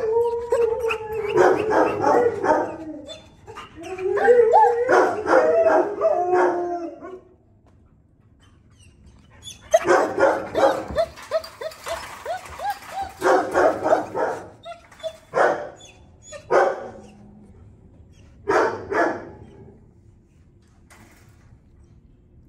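Dogs in shelter kennels barking, mixed with wavering whining yelps over the first several seconds. After a short lull come more bursts of barks, which thin out and stop near the end.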